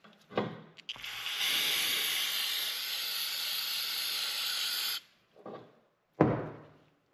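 Aerosol can of brake parts cleaner spraying in one continuous hiss of about four seconds, starting about a second in, as parts are blasted clean over the drain pan. About six seconds in comes a single sharp knock, the loudest sound.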